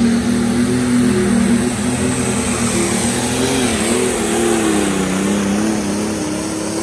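Minneapolis-Moline G950 superstock pulling tractor's turbocharged diesel engine running flat out while dragging a weight-transfer sled. Its pitch wavers and sags about halfway through as the sled's load builds, then holds steady at a lower pitch.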